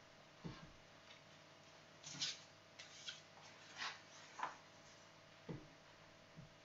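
Near silence, broken by about half a dozen faint, brief rustles and taps from handling a cloth tape measure and pencil over cotton fabric on a cutting mat.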